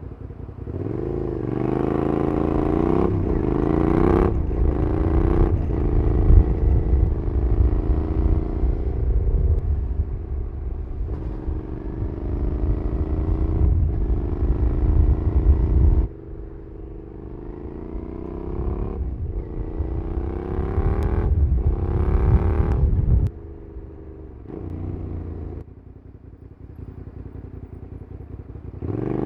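Suzuki SV650SA's 90-degree V-twin with a Cobra SC3 exhaust, accelerating through the gears: the engine note climbs, drops back at each upshift and climbs again, many times over. Heavy wind rumble on the microphone for the first half or so, then the bike settles to quieter running near the end.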